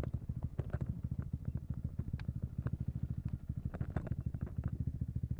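KTM RC 390's single-cylinder engine idling through an Akrapovic exhaust, with an even, rapid low pulse.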